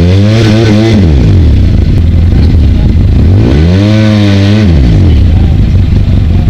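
Off-road vehicle engine revved hard twice, the pitch climbing and falling back each time and settling to a low idle between, as the machine struggles to get through a muddy, flooded creek crossing.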